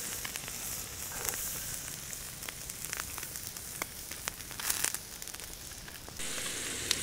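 Ribeye steak sizzling on a wire grill over a wood campfire, with scattered sharp crackles and pops from the fire. Near the end a louder, steadier frying hiss cuts in.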